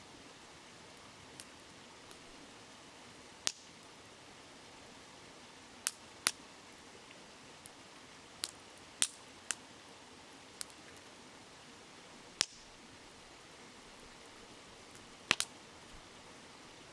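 Wood fire crackling, with about a dozen sharp, irregular pops and snaps, over the steady rush of a babbling river.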